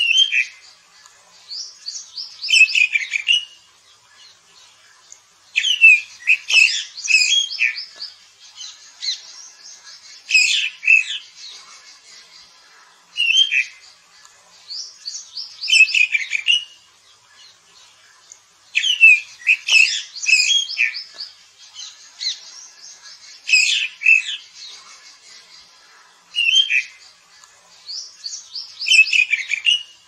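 A Cyornis blue flycatcher singing short, high, sweet trilling phrases, one about every two to three seconds.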